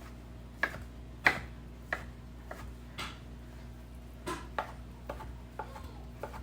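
Knife cutting cooked chicken into cubes on a cutting board: about ten separate sharp knocks at an uneven pace, with a gap of about a second around the middle.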